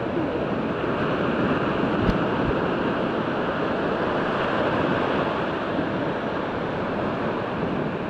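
Ocean surf breaking near the shore, a steady rushing noise. There is a single brief click about two seconds in.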